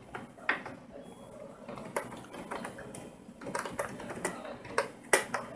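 Computer keyboard keys clicking in irregular runs of typing, with the sharpest keystrokes about half a second in and near the end.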